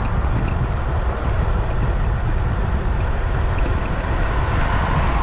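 Steady rushing rumble of a bicycle ride at speed, mostly wind on the microphone, with no rise or fall.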